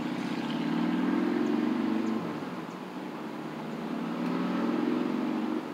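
A motor vehicle's engine, swelling loud for about two seconds, easing off, then swelling again before dropping away near the end.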